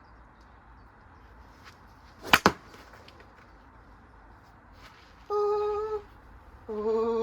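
Two sharp cracks in quick succession a little over two seconds in, then near the end two steady pitched calls, each under a second long.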